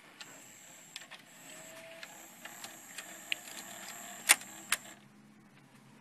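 Bang & Olufsen Beocord VX5000 VHS recorder's tape transport running with a cassette loaded: a steady high whine with scattered light mechanical clicks, and a sharp clack a little after four seconds in. The running stops about five seconds in.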